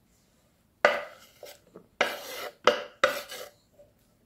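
Chopped pineapple being scraped off a wooden cutting board into a plastic bowl: four sharp scrapes and knocks, each fading quickly, as the pieces slide off the board's edge and drop into the bowl.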